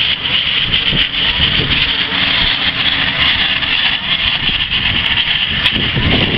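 Tractor and baling machinery running steadily: a constant hiss over a low engine rumble.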